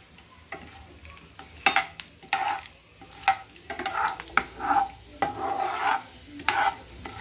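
Metal slotted spoon stirring tempering seeds and dals in hot oil in a granite-coated frying pan, scraping the pan in repeated uneven strokes with sharp clicks, over a light sizzle of the oil.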